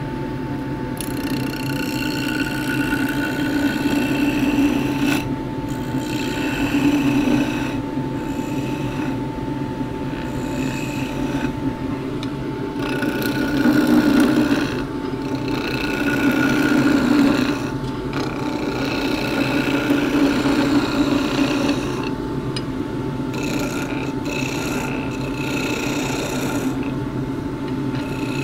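Wood lathe running with a steady motor hum while a skew chisel cuts the spinning juniper spatula blank, the cutting noise swelling with each pass and easing between passes.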